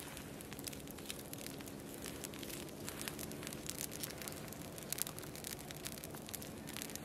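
Small campfire of sticks and twigs crackling, with frequent irregular pops and a louder snap about five seconds in.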